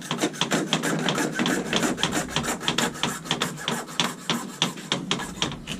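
Hand saw cutting through a water pipe in rapid, even back-and-forth strokes, several a second, stopping near the end. A saw is used because this pipe shatters under a pipe cutter.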